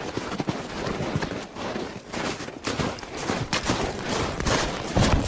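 Hurried footsteps crunching in snow, an irregular string of quick crunches and scuffs from walking fast along a snowy path.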